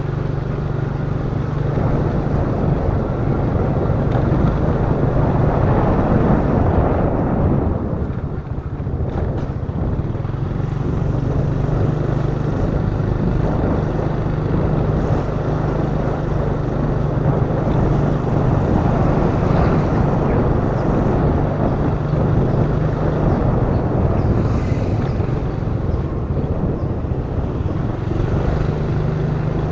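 Honda Beat FI scooter engine running steadily for the whole stretch, easing off briefly about eight seconds in.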